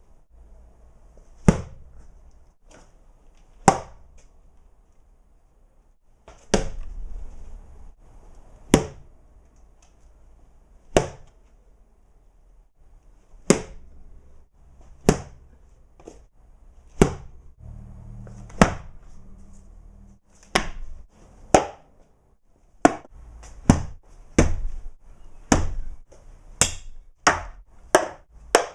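Sharp whacks struck one at a time on improvised objects, a couple of seconds apart at first and coming faster, about one a second, in the last third: foley attempts at the sound of a hockey stick hitting a person.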